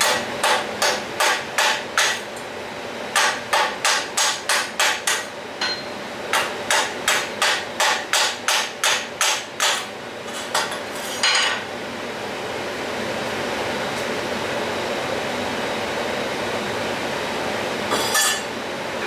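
Chipping hammer knocking slag off a freshly laid stick-electrode weld on steel plate: runs of quick, sharp metal strikes, about three a second, stopping about twelve seconds in, with one more short knock near the end. A steady hiss runs underneath.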